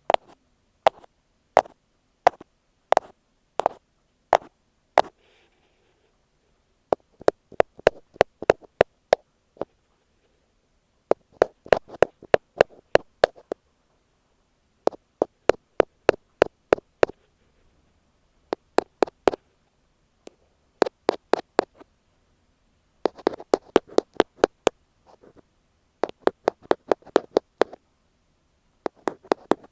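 Ear pick tapping directly on an earphone microphone: sharp, close taps, first single taps a little under a second apart, then quick runs of taps in bursts of about two seconds with short pauses between.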